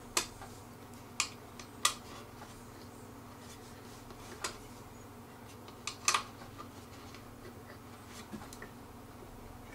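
About half a dozen sharp clicks at irregular intervals, from a hand tool tightening the bolts of a wooden table.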